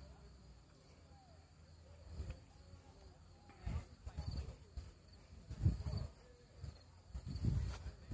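Steady high drone of insects, with several irregular muffled low rumbles and thumps, the loudest just past the middle and near the end.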